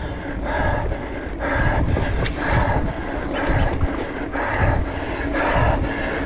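A mountain biker's heavy breathing from hard racing effort, about one breath a second, over a steady low rumble.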